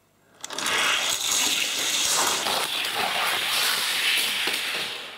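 Two die-cast Matchbox toy cars rolling at speed down a plastic race track, a steady rushing rumble of small wheels on the track that starts about half a second in and fades away near the end.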